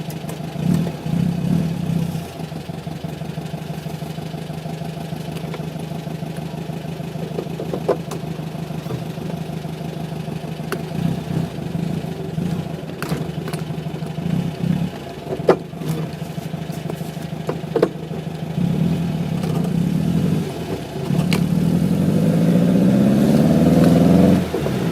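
VW Beetle 1600's air-cooled flat-four engine heard from inside the cabin, running steadily and then pulling harder with its pitch rising over the last few seconds before it falls off sharply, as at a gear change. A few sharp clicks or knocks come through.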